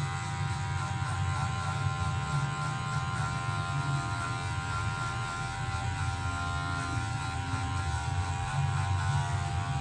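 Electric hair clipper buzzing steadily as it cuts hair over a comb.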